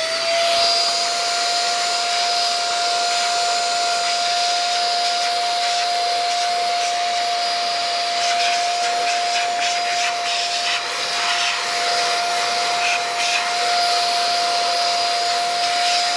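Brigii M1 handheld mini vacuum cleaner running through its flexible extension hose while vacuuming dust off a desk: a steady high motor whine over rushing air, reaching full speed about half a second in.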